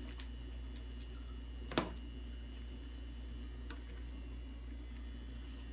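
A spoon stirring noodles and broth in a metal pot, with one sharp knock of the spoon against the pot about two seconds in and a couple of faint ticks, over a steady low hum.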